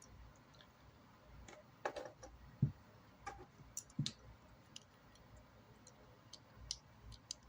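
Plastic Lego pieces clicking and knocking as they are handled and pressed together: scattered sharp clicks, with a couple of louder knocks around the middle.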